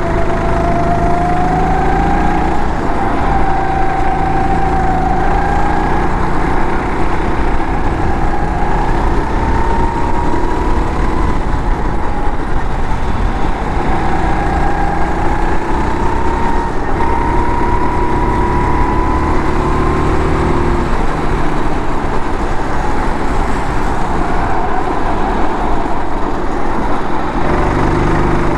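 Go-kart engine heard from on board, its pitch rising and falling as the kart accelerates and eases off around the track.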